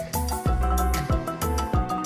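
Worship music with a steady beat: deep drum thumps about twice a second under held chords, with no singing heard.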